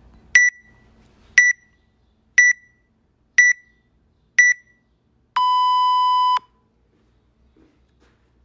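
Workout timer's start countdown: five short high beeps one second apart, then one long, lower start beep lasting about a second that signals the workout's start.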